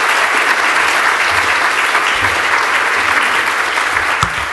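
Conference audience applauding: dense, steady clapping from a large hall of people.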